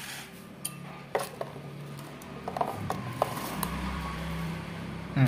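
Steel spoon scraping and scooping thick chutney in a stainless steel bowl, with a few sharp clinks of the spoon against the bowl.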